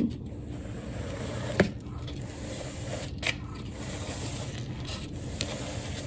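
A paper plate being turned on a wooden tabletop, a soft scraping with a sharp knock about a second and a half in and a few lighter ticks later.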